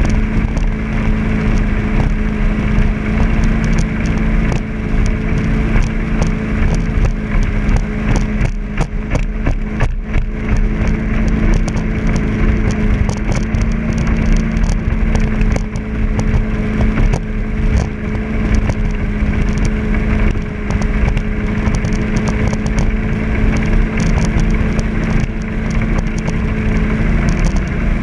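Jet boat engine running at a steady cruise, holding one even pitch. Under it is a constant rushing noise of wind and water.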